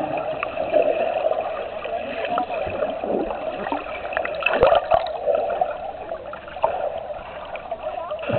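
Water and air bubbles from a swimmer, heard through a camera held underwater, louder for a moment about halfway through.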